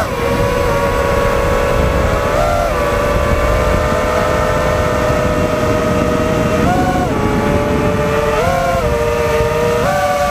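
FPV drone's brushless motors whining at a steady pitch, with four short throttle punches that briefly raise the whine, over a low rushing noise.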